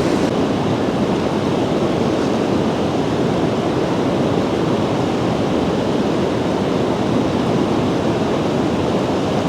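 Loud, steady rushing of a fast-flowing river, an even noise with no breaks or changes.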